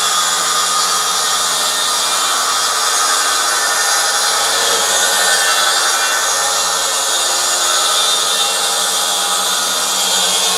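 Makita plunge saw running along a guide rail and ripping steadily through sheet board, at an even, loud level with a steady motor tone.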